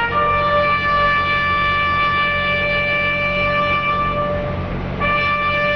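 A bugle playing a slow ceremonial call of military honours. One high note is held for about four and a half seconds, then it breaks off and sounds again near the end.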